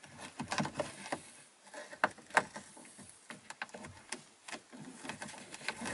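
Light plastic clicks and taps as an overhead dome light's plastic lens cover is handled and pressed against its housing, with two sharper clicks about two seconds in.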